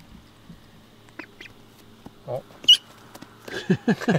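Young white domestic ducks quacking: quiet at first, then short calls in quick succession over the last second or so, each falling in pitch.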